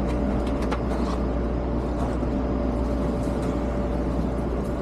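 Steady low rumble and constant hum inside a passenger train car, with a few faint clicks in the first second or so.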